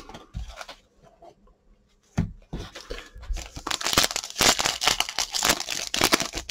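A Topps Chrome trading-card pack's foil wrapper being torn open and crinkled by hand. A knock comes about two seconds in, and the dense crinkling starts about halfway through.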